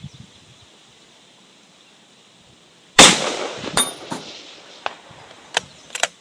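A single loud shot from a .260 Remington bolt-action hunting rifle about three seconds in, with a trailing echo, followed by a few short sharp clicks.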